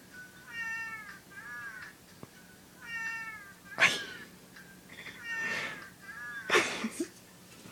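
A cat's meow call repeats over and over, the same falling call each time. Two short, loud hisses come about 4 and 6.5 seconds in.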